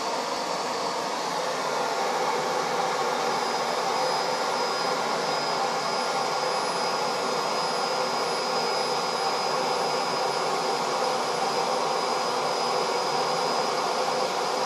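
Laser engraving machine at work with its fume extractor drawing a steady rush of air; a thin, steady high whine joins about three seconds in as the laser starts marking.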